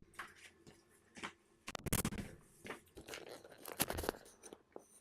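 Close handling noise: irregular scratches, rubs and clicks of objects being picked up and moved near the microphone, loudest about two seconds in and again near four seconds.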